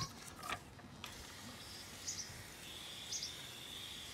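Faint outdoor background hiss with two brief high chirps, and a thin, steady high-pitched whine that starts a little past halfway.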